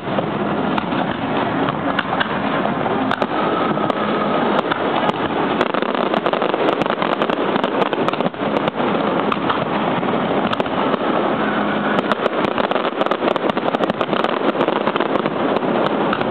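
Fireworks display: a dense, continuous barrage of bangs and crackles with no letup.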